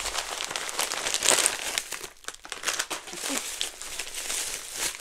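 Plastic bubble wrap crinkling and rustling as it is handled and pulled out of a parcel, a dense run of small crackles.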